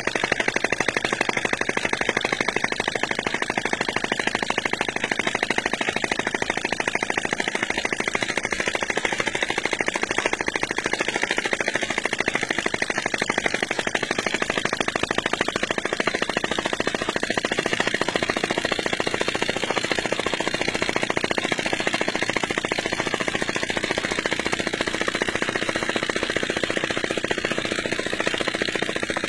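Small model hot-air engine with a spirit-lamp flame at its finned cylinder, running fast with a rapid, steady mechanical clatter.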